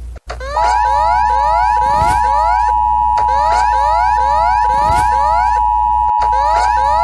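Electronic alert siren sounding a fast, repeating upward whoop. A steady high tone joins it about half a second in and holds, with a low hum beneath. The sound cuts off suddenly at the end.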